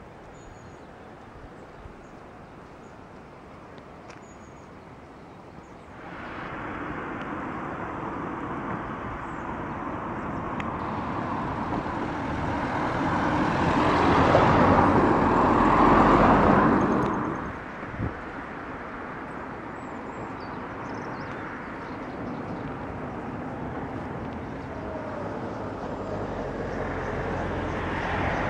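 Road traffic. After a few quiet seconds a vehicle comes up, grows louder to a peak about halfway through and then fades, leaving a steady hum of traffic noise.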